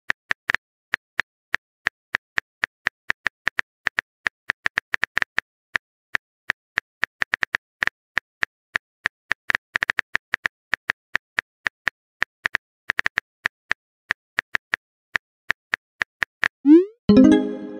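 Phone-keyboard typing clicks: an uneven run of short taps, a few a second. Near the end comes a short rising pop, a message-arrival sound.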